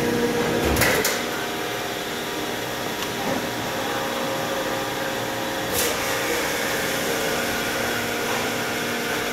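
Steady hum of a running Van Dorn 400 hydraulic injection molding machine: a constant drone holding several steady tones. Two brief clicks stand out, one about a second in and one near six seconds.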